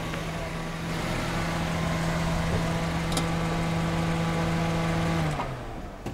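Hatchback car engine idling with a steady hum, then dropping in pitch and cutting out about five seconds in as the engine is switched off.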